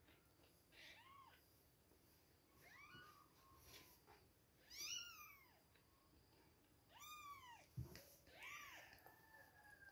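Two-week-old kittens mewing: about five faint, high cries, each rising and falling in pitch, the loudest about five seconds in, with a soft knock near eight seconds.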